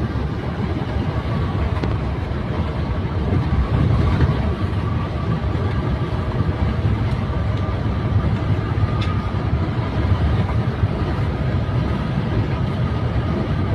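Steady low rumble of a running vehicle, with no distinct horn blasts.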